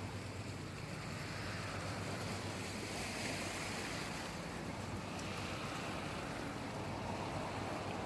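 Sea waves washing in, a steady hiss of water that swells and eases every few seconds, over a low rumble of wind on the microphone.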